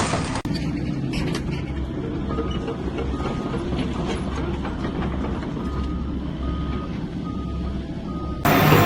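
Heavy vehicle engine running with a steady low rumble, while a reversing alarm gives short high beeps, six or so at uneven spacing, from about two seconds in. Near the end a sudden loud rush of noise cuts in.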